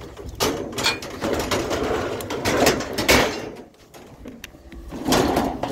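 Clattering and scraping of an old bicycle being pushed and wedged into a vehicle's cargo space, in irregular knocks and rubs with a pause about four seconds in.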